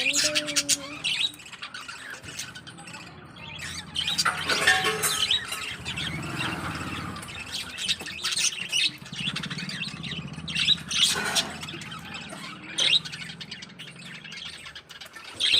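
Cockatiels chirping and calling again and again in short, high notes, with a low steady hum underneath through the middle.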